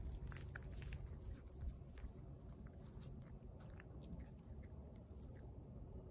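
A stray cat chewing and biting into raw fish: faint, irregular clicks of eating.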